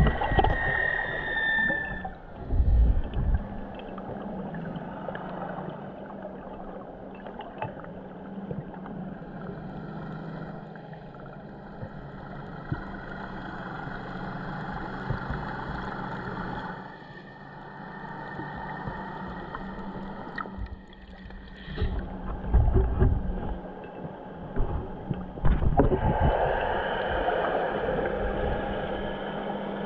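Muffled underwater sound picked up through an action camera's waterproof housing: water moving, a steady low hum, and a few low thumps, mostly in the last third.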